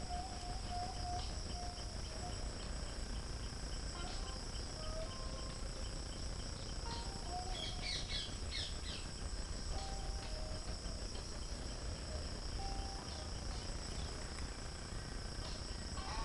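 Steady high-pitched chorus of insects, with a cluster of quick chirps about eight seconds in.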